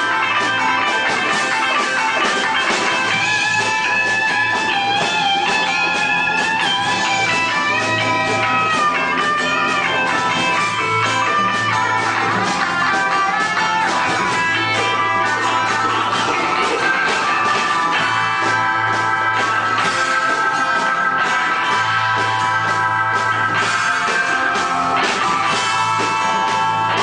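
Live rock band playing an instrumental passage, guitars to the fore, with a lead line that slides and wavers in pitch over a steady bass.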